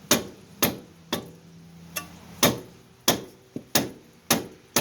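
Rubber mallet striking the steering knuckle and outer tie rod end of a 1989 Toyota Corolla, about two sharp blows a second, each with a short ring. The blows are meant to knock loose a tie rod end seized in the knuckle.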